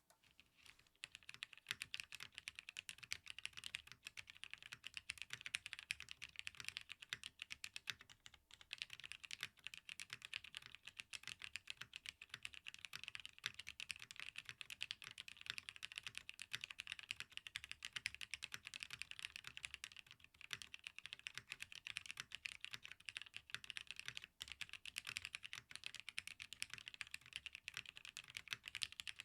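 Continuous fast typing on a mechanical keyboard with linear Cherry MX Hyperglide Black switches, machine-aged for 120 million actuations, in a plateless Geon W1-AT case with PBT keycaps. The keystrokes are dense and clacky, start about a second in, and break off briefly about eight seconds in.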